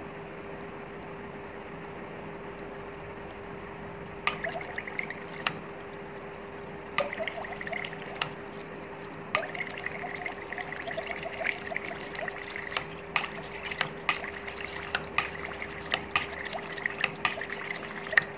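Gas bubbling and gurgling up through water poured into an LPG kit's reducer, in short spurts from about four seconds in and almost without break in the second half: the kit is over-flowing, letting gas through. A faint steady hum runs underneath.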